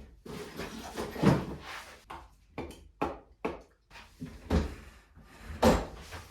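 Rummaging through workshop cupboards and drawers while searching for a sander: a string of irregular knocks and bangs as doors and drawers are opened and shut and things are shifted about.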